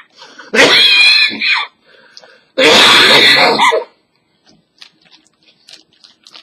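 A man coughing hard twice, each harsh, loud hacking fit lasting about a second, with his mouth stuffed with marshmallows during the chubby bunny challenge. The coughs overload the webcam microphone, followed by faint small mouth noises.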